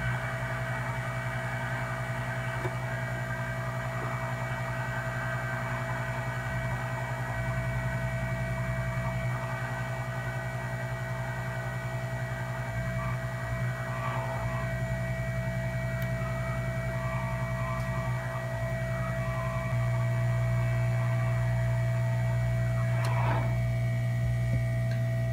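Hot air rework station's blower running steadily while desoldering a surface-mount chip from a logic board: a steady hum with a faint airy hiss. About twenty seconds in the low hum steps up louder and holds.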